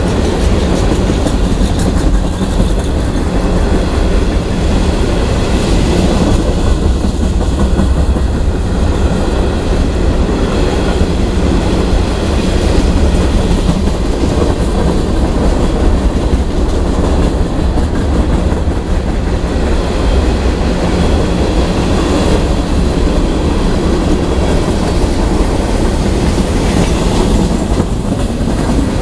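Freight train's open-top hopper cars rolling past at close range: a loud, steady rumble of steel wheels on the rails.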